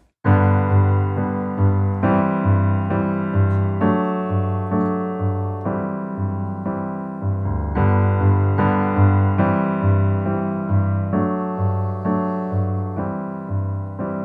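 Piano played on a stage keyboard: a steady pulse of chords over a bass note on each beat, starting suddenly just after the beginning.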